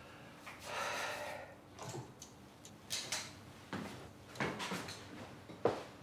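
Rustling and light knocks of items being handled and packed into a bag on the floor, with a longer rustle about a second in and a sharper click near the end.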